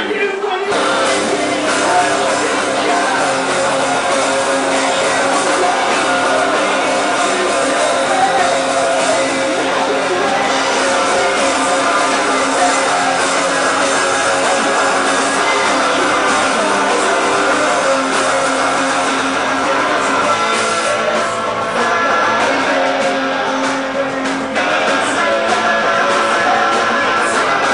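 Live rock band playing a song loudly: electric guitars and drums, with a singer's voice.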